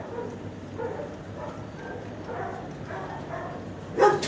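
Faint dog sounds in a quiet kennel, then a dog barks loudly once about four seconds in, the start of a run of barks.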